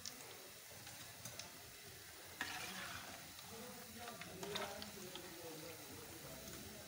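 Gram-flour (besan) pakoras deep-frying in hot oil, a faint, steady sizzle. A metal slotted spoon stirs and turns them, giving a few light clicks against the pan; the sizzle grows a little louder about two and a half seconds in.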